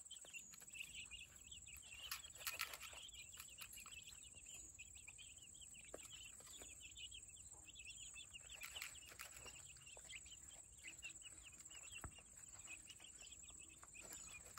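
Young chicks peeping, a faint, unbroken chorus of many short high cheeps overlapping one another.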